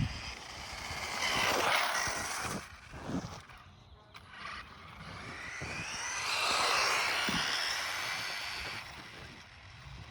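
Kyosho Raider electric RC car driving on pavement, its motor whine and tyre hiss rising and fading as it passes twice, loudest about two seconds in and again near seven seconds.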